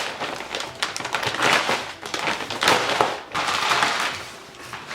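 Plastic front lip and bumper being handled and fitted: an irregular run of scraping, knocking and rustling.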